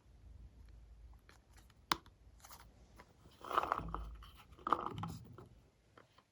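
Glossy slime being squished and kneaded by hand, with small sticky clicks and pops, one sharp click about two seconds in, and two louder squelches about three and a half and five seconds in.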